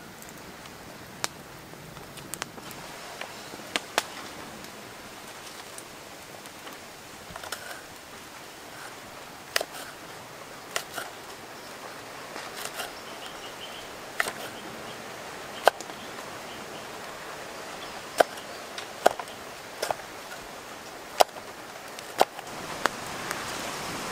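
A wood fire crackles over a steady hiss, with scattered sharp pops and knife cuts on a wooden board, about a dozen clicks at uneven intervals.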